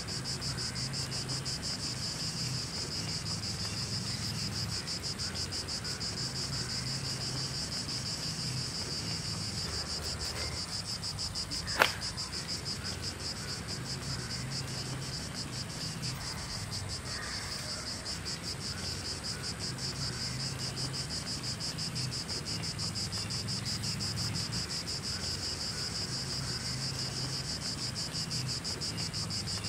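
Steady chorus of forest insects, a high, fast-pulsing trill like crickets that runs on without a break. A single sharp click sounds about twelve seconds in.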